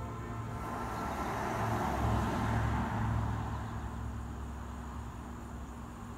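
A road vehicle passing by: a rumble and tyre hiss swells to its loudest about two to three seconds in, then fades away.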